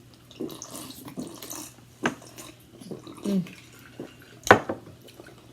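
Light clatter and rustling of food and utensils at a dinner table, with two sharp clicks, the louder one about four and a half seconds in.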